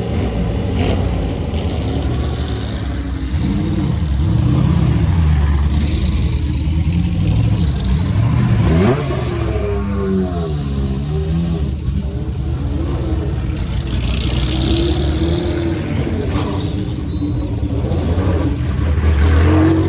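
Engines of several historic racing cars from the late 1960s and early 1970s, running at low speed with repeated throttle blips. Their pitch rises and falls over and over, with more than one engine heard at once.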